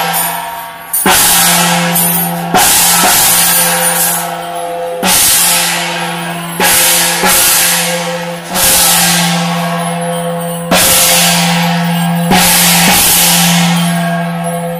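Chinese hand gong struck hard, about once every one and a half to two seconds. Each stroke rings on with a steady humming tone that fades until the next stroke, keeping time for a temple troupe's dance.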